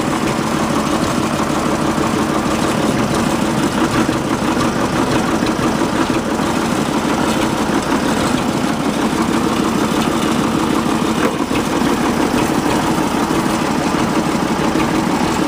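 Diesel engine of a shuttle-shift tractor running steadily at idle, freshly cold-started without glow-plug preheat.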